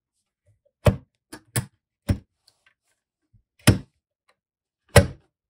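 A sewing machine's presser foot being unclipped and snapped back on as the feet are swapped: about six sharp clicks spread over several seconds.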